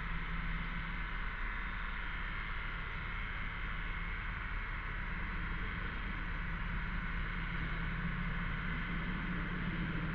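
Cicadas droning in a continuous chorus, a steady high buzz that does not let up, over a low steady hum.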